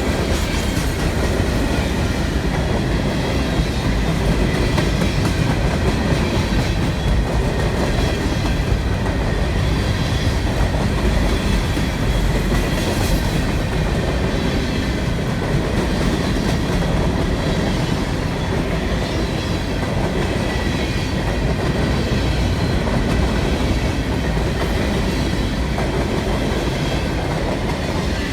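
CSX freight train cars rolling past at close range: a steady rumble of wheels on rail with repeated clacking over the rail joints.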